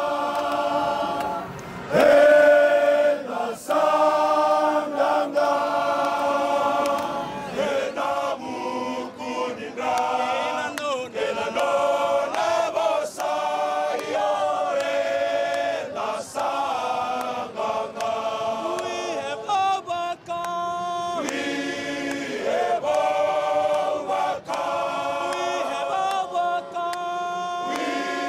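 A large group of men, the Fiji rugby players, singing a hymn together unaccompanied in harmony, with long held notes that change every second or two.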